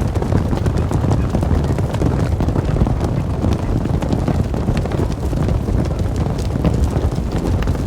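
Hooves clattering on the ground, many quick irregular steps over a steady low rumble, as of hoofed animals running.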